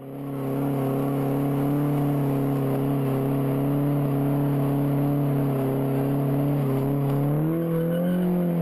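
A car engine held at high revs during a burnout, wheels spinning, with the revs rising near the end.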